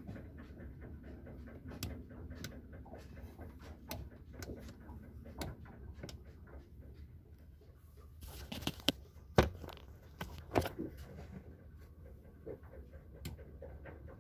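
Handling noise from a hand-held phone: low rustling and rumble with scattered small clicks, a short rush of noise past the middle, then two sharp knocks a little over a second apart.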